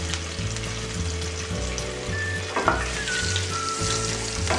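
Peeled hard-boiled eggs sizzling steadily in hot mustard oil with turmeric, being shallow-fried. A wooden spatula turns them in the pan, with a couple of knocks against the metal about halfway through and near the end.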